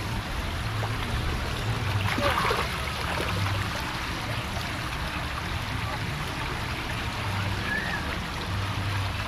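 Splash pad fountain jets spraying and water running across the pad, a steady rushing trickle.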